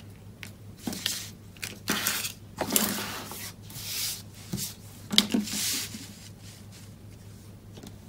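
Cardstock and craft supplies being handled on a desk: rustling, scraping and a few light taps that stop about six seconds in, over a steady low electrical hum.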